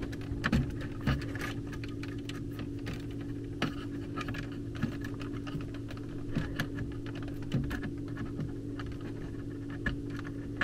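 Small irregular clicks and scratches of thermostat wires being handled and worked into the terminal block of a plastic zone control board, over a steady low hum.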